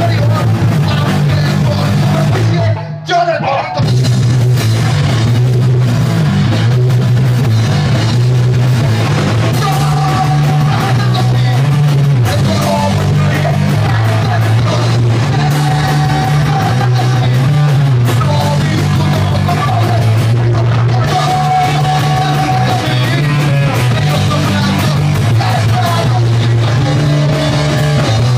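Live rock band playing loud: electric guitar, bass, drum kit and vocals. The band cuts out for about half a second around three seconds in, then crashes back in.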